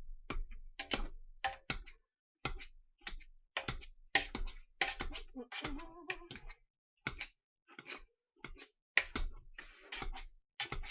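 Hand potato masher working through boiled potatoes mixed with butter and sour cream: a quick, irregular run of short mashing strokes, about two or three a second.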